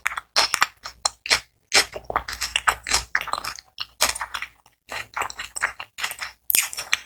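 Close-miked chewing of crispy fried onion rings: bursts of sharp, crackly crunches with short pauses between bites.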